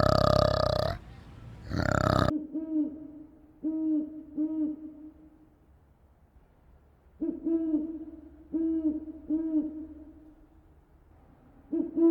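An owl hooting: a series of short, low, evenly pitched hoots, three together and then five after a pause, with a longer hoot near the end. It is preceded by a loud, rough animal call that breaks off about two seconds in.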